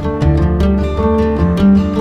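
Background music: plucked acoustic guitar over a steady bass line, in a regular rhythm.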